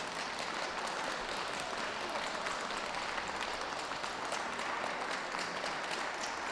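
Spectators applauding steadily, many separate hand claps blending into a continuous patter.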